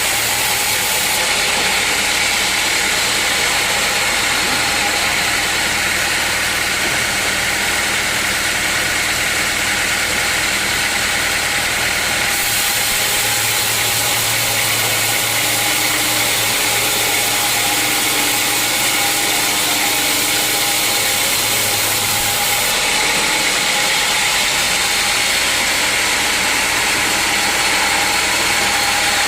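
Sawmill machinery running steadily: a saw and its motor, with a constant hiss and a steady whine. The hiss shifts abruptly in level a few times.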